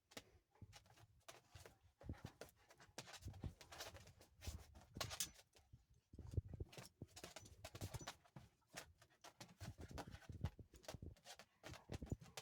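Dogs play-wrestling: quiet, irregular scuffling with soft thumps and quick clicks of paws and claws.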